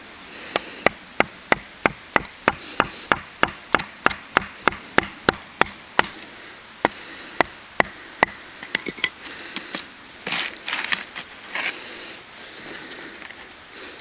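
Wooden baton knocking on the butt of a small full-tang neck knife, driving it into a piece of wood to split it: a fast, even run of about three or four knocks a second, slowing to a few spaced knocks after about six seconds. Near the end comes a short stretch of crackling and rustling wood.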